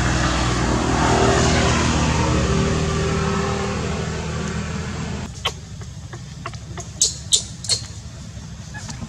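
A motor vehicle's engine running as it passes close by, swelling and then fading over the first five seconds. After that it is quieter, with a few short, sharp clicks, three of them in quick succession.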